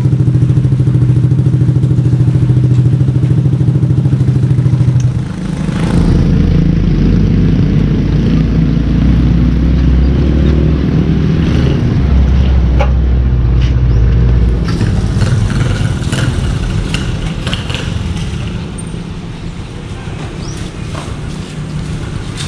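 Motorcycle with an SC Project aftermarket exhaust running loud with a steady note for about five seconds. It then settles into a deeper, heavier note and fades gradually over the last several seconds.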